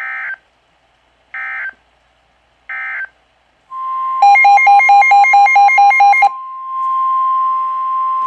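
Three short screeching digital bursts of the EAS end-of-message code, about a second and a half apart, closing a tornado warning. Then a steady 1050 Hz weather-radio alert tone starts; for about two seconds it carries a loud, rapidly pulsing two-note electronic beeping, and it continues alone after that.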